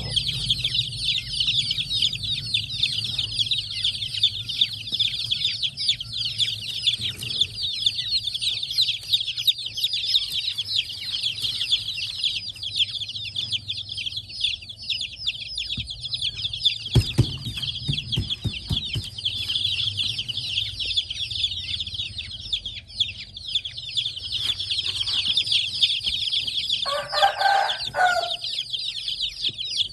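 A crowd of baby chicks peeping continuously, many high chirps overlapping. There are a few knocks about halfway through and a short, lower call near the end.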